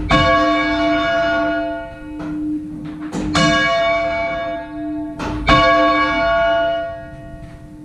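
A ring of six church bells, tenor in A-flat, rung full circle, heard up in the bell chamber. A nearby bell strikes loudly at the start, about three seconds in and about five and a half seconds in, with a fainter stroke between. Each stroke rings on and dies away, with a steady hum underneath.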